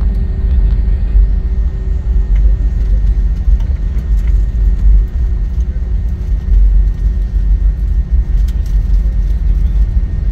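Airliner cabin noise: a steady low rumble of engines and airflow heard from a passenger seat, with a faint steady hum running through it.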